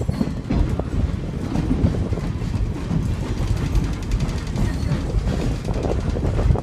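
Open-sided passenger car of a steam train rolling along the track, a steady rumble and clatter of wheels on rails heard from on board.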